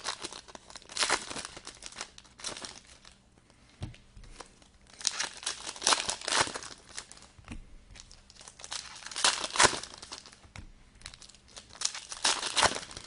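Trading-card pack wrappers being torn open and crinkled by hand, in irregular bursts of rustling and tearing with short pauses between.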